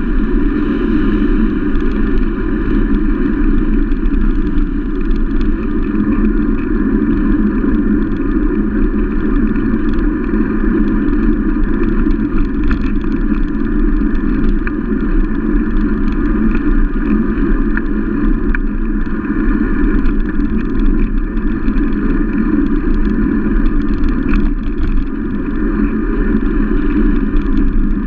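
Steady wind and road noise on a handlebar-mounted camera while riding a knobby-tyred bicycle along a paved road: an unbroken rush and rumble with no let-up.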